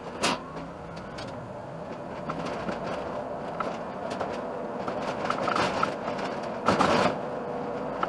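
Iveco Urbanway city bus driving and picking up speed, heard from inside the cab: steady engine and road noise with scattered rattles and clicks, and a louder rushing burst about seven seconds in.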